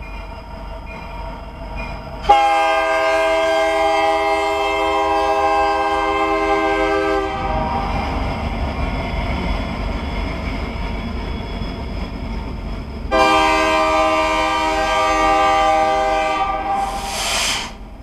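CN freight locomotive's air horn sounding two long blasts for the level crossing, the second as the engine passes close by. Between the blasts the locomotive and its freight cars rumble past. A short rushing hiss comes as the second blast cuts off.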